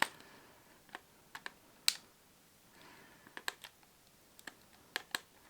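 Faint, irregular small clicks and a light scrape of a multi-tool's can-opener flathead turning a small screw into a plastic toy's housing.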